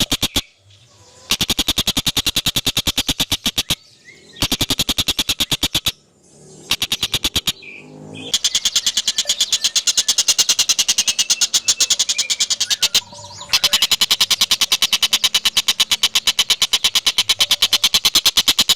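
An animal calling in a rapid pulsing trill, about a dozen pulses a second, in bouts of one to five seconds broken by short pauses.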